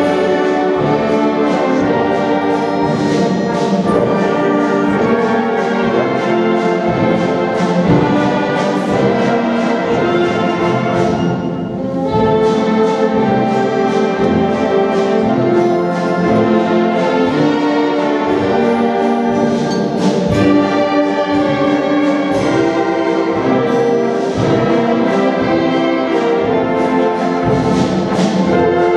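A concert wind band of brass, saxophones and clarinets playing a tune together over a steady drum beat, with a brief drop in the sound about twelve seconds in.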